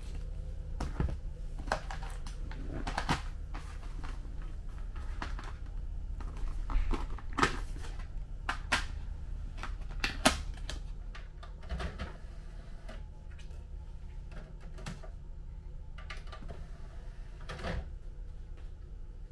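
Plastic DVD cases and disc sleeves being handled and set down on a desk: irregular clicks, clacks and crinkles, over a steady low hum.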